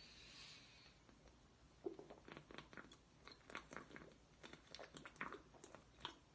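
Near silence, with faint, irregular little clicks and crackles through most of it.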